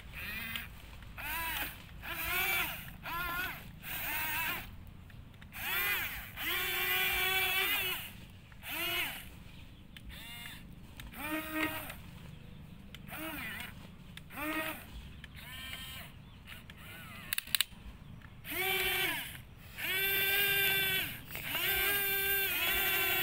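Electric gear motors of an RC model excavator whining in repeated bursts as the boom, arm and bucket move, each run rising in pitch as it starts and then holding steady, some lasting a second or two. A sharp click about three-quarters of the way through.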